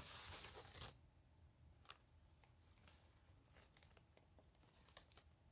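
Faint rustle of a baseball jersey and its packaging being handled, loudest in the first second, then near silence with a few soft ticks.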